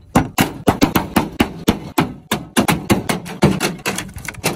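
An axe striking the sheet-metal body of a pickup truck in a rapid series of sharp, loud hits, about four or five a second.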